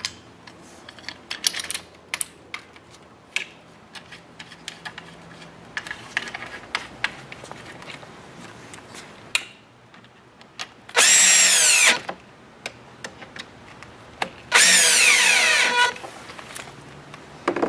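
Cordless drill driving screws into the rod's bottom end cap in two short runs, each about a second long, its whine falling in pitch as the motor slows. Before the first run there are light clicks and knocks as the parts are handled.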